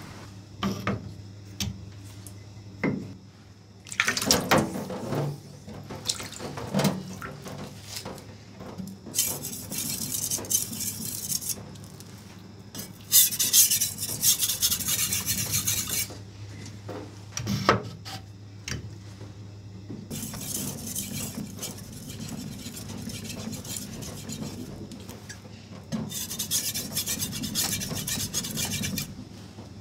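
A Shun Damascus Chinese cleaver is stroked back and forth on a wet whetstone, giving stretches of gritty scraping a few seconds long. Metal clinks and knocks fall between the stretches, over a low steady hum.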